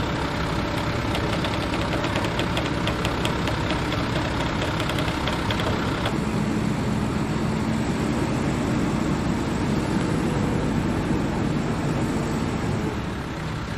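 Diesel dump truck engine running. For the first few seconds a quick clatter of ticks rides on it, about four or five a second. After an abrupt change the engine runs on steadily with a low hum while the bed is tipped to dump its load of sand.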